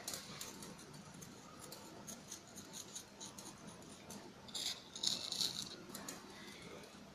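Fingertips tapping and flicking a glass sheet covered with iron filings: faint, quick, light clicks, with a louder flurry about five seconds in. The tapping jostles the filings so they settle along the bar magnet's field lines.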